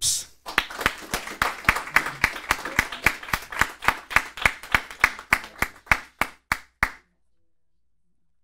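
Hands clapping in applause, a steady run of sharp claps about four a second, slowing slightly before stopping about seven seconds in.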